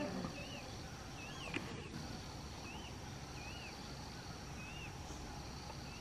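Brown bullfinch calling: a short, soft whistle that rises and falls, repeated about once a second, over a steady high-pitched hum. A brief rustle, as of wings fluttering, comes at the start.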